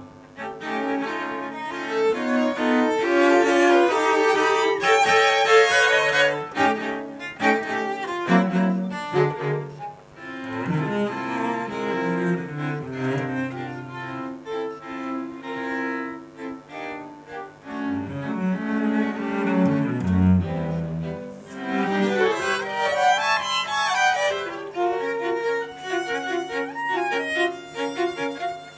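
String quartet playing a bowed passage, the cello's low notes moving under the violins, with a brief dip in loudness about ten seconds in.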